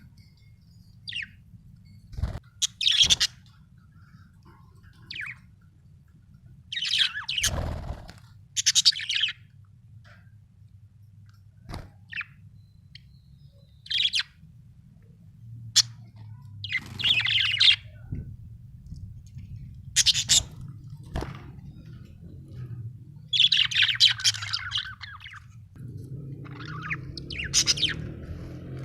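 Budgerigar chirping and chattering in short bursts of up to a second or so, with pauses between, over a low steady hum. A few sharp clicks fall among the calls.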